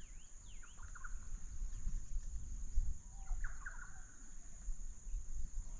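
Birds chirping briefly, once about half a second to a second in and again around three and a half seconds in, over a steady high insect drone.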